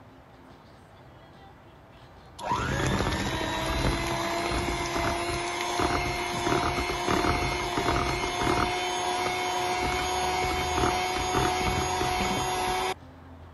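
Handheld electric mixer switching on about two seconds in, its motor whine rising briefly and then holding steady while the beaters clatter irregularly in the metal bowl, beating eggs into the batter. It cuts off suddenly near the end.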